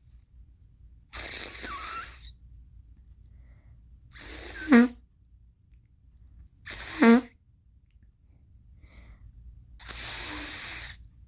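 Allergy sneezing: two sharp sneezes about two and a half seconds apart, each building from a rushing breath in to a loud burst. A breathy rush of air comes before them and another, longer one near the end.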